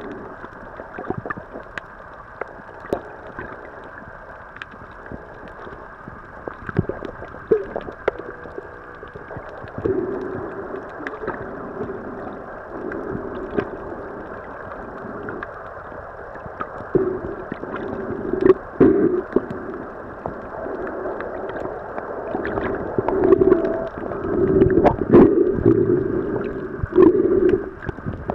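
Muffled underwater sound picked up by a submerged camera: a low hum that swells and fades several times, with scattered faint clicks and crackles.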